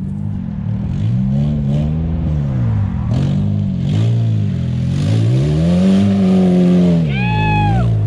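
Mazda Miata four-cylinder engine revving up and down again and again under load as the lifted kart drives through mud. A brief high-pitched squeal rises and falls about seven seconds in.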